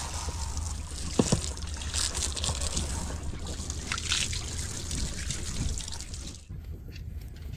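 Water from a garden hose running and splashing over a boat's deck and gunwale as it is washed down, with one sharp knock about a second in; the water cuts off near the end.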